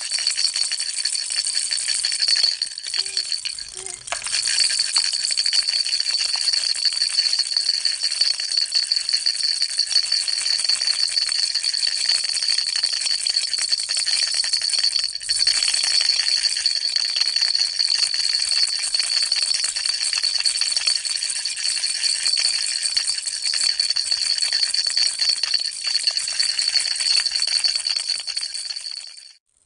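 Baby rattle shaken continuously: a dense, fast rattling with a steady high ringing tone running through it. The rattling eases briefly about three seconds in and again about halfway, then cuts off suddenly just before the end.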